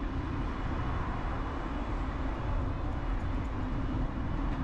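Steady wind rush and tyre rolling noise on a bicycle dashcam's microphone while riding along a paved cycle path.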